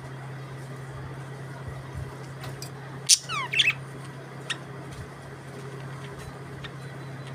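Budgerigar giving a sharp squawk about three seconds in, followed at once by a quick run of short gliding chirps, with a single click a moment later. A steady low hum runs underneath.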